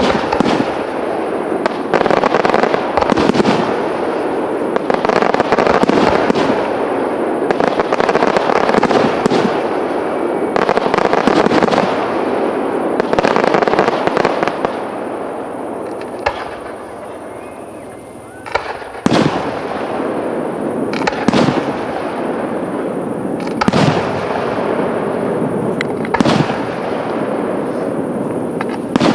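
Aerial fireworks display: shells bursting with sharp bangs over a dense, continuous crackle of bursting stars. A short lull comes a little past halfway, followed by a handful of separate sharp bangs a couple of seconds apart.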